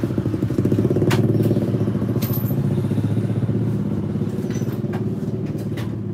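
A motorcycle engine starts up close by and runs with a rapid, even pulse. It is loudest about a second in, then slowly fades.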